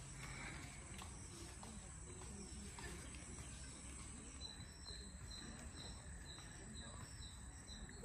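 Insects in grass and shrubs: a thin, steady high-pitched insect buzz, joined about halfway through by a short chirp repeated two or three times a second, over a low steady rumble.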